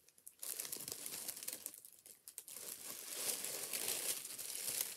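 Paper packing rustling and crinkling as a shoe is handled in its box, in two stretches with a short pause about two seconds in.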